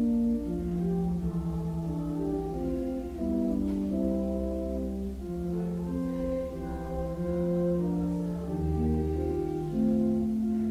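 Church organ playing the offertory hymn in steady held chords that change every second or so over a sustained low bass.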